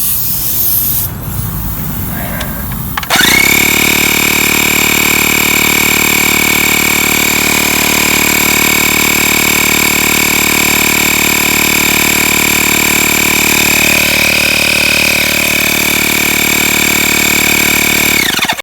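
Small electric air compressor inflating a lawn tractor tire. Its motor spins up about three seconds in, runs steadily with a high whine for about fifteen seconds, then winds down and stops near the end.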